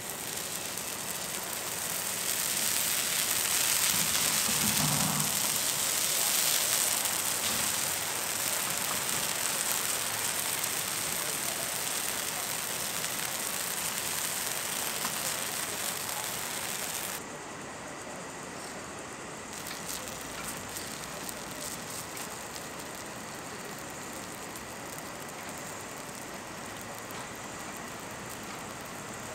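Moong dal chilla batter sizzling on a hot skottle griddle over a gas burner: a steady hiss that swells a couple of seconds after the batter is spread, then drops suddenly to a softer, steady sizzle about halfway through.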